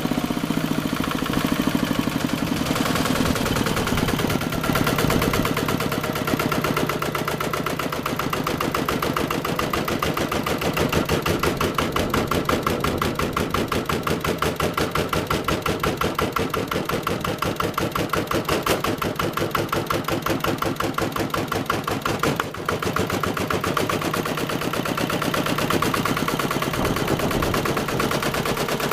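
Water-cooled single-cylinder four-stroke diesel engine (CP90, 487 cc) running steadily, with the fast, even chugging beat of its single cylinder firing.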